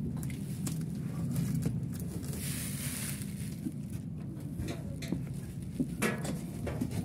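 A steady low machine hum, with rustling and scattered knocks from equipment being handled in a cramped space; a short hiss comes about two and a half seconds in, and a cluster of knocks near the end.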